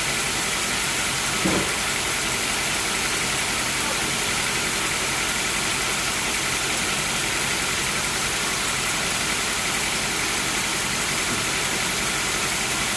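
Sawmill machinery running steadily at a constant engine-like pitch, with a short louder sound about a second and a half in.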